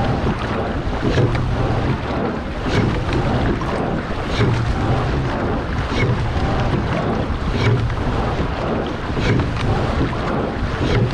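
Water rushing along the hull of a racing pair shell under way, with wind on the microphone. A surge and a sharp click come about every one and a half seconds, once with each oar stroke.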